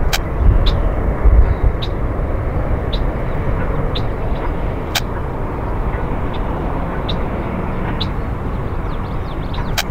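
Boeing 767-200ER jet airliner passing overhead at about 2,500 ft, a steady low jet rumble from its two engines, with a few louder low gusts in the first two seconds. Short high ticks sound about once a second.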